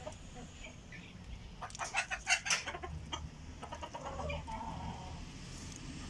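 Mixed local-breed and Fayoumi chickens clucking: a quick run of sharp clucks about two seconds in, then a softer, drawn-out call.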